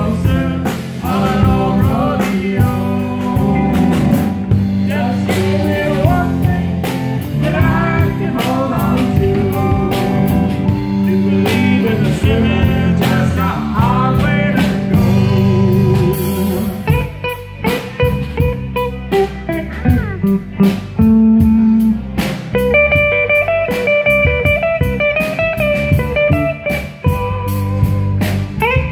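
Live blues-rock band with electric bass, drum kit and electric guitar, with singing over it; about halfway through the vocals stop and the electric guitar takes a lead solo of single held and bent notes.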